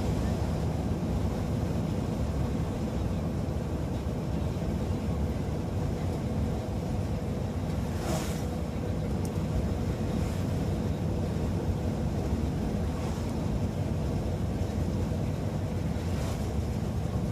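Typhoon storm noise: a steady low rumble of wind and heavy rain, with a few brief hissing surges at irregular intervals.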